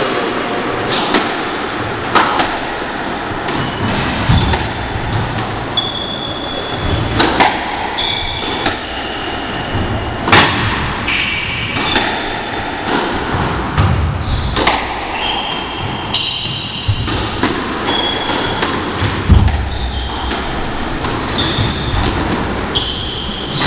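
Squash rally: the ball hitting rackets and walls every second or two, with short high squeaks of shoes on the wooden court floor and heavy footfalls, the loudest thud about 19 seconds in.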